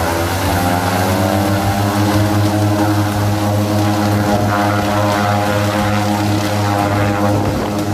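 Twin-engine turboprop plane's engines and propellers running at high power, a loud steady drone with a low propeller hum. The pitch edges up slightly around the middle as the plane powers up for its takeoff roll.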